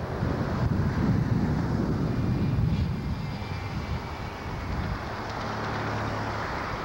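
Low rumble of a moving car with wind on the microphone. It swells over the first few seconds, then settles into a steadier hum.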